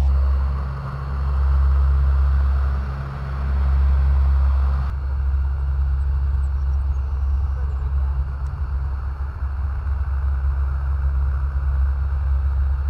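Low, steady rumble of military aircraft engines at an airfield during takeoffs, swelling and fading every couple of seconds at first, then changing abruptly about five seconds in and carrying on as a rougher rumble.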